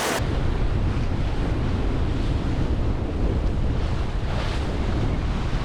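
Strong wind buffeting the microphone with a heavy low rumble, over the steady rush of ocean waves along a sailboat under way, the water swelling louder a couple of times.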